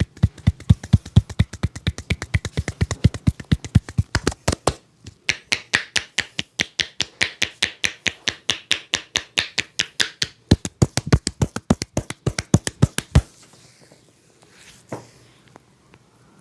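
Hand-percussion massage: palms chopping and slapping on the body in a fast, even rhythm of about five strokes a second. The strokes pause briefly near five seconds in, sound sharper for the next few seconds, and stop about thirteen seconds in.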